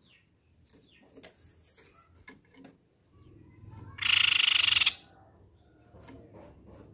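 Crescent-chested babbler (tepus pipi perak) giving a loud, very fast rattling trill about four seconds in, lasting about a second. A thin high whistled note comes earlier, with faint clicks and taps from the bird moving about the cage.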